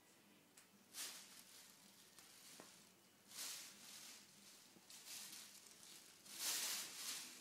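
Plastic carrier bag crinkling in a few short bursts as a cat shifts about on and inside it, the loudest burst near the end.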